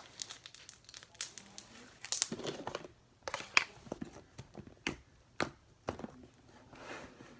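Stretchy clear-and-white-glue slime being pulled and squished by hand, giving off irregular crackles, pops and short tearing sounds.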